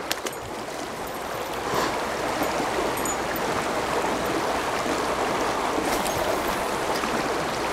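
Creek water running over a shallow rocky riffle, a steady rushing sound that grows a little louder about two seconds in, with a couple of small clicks at the very start.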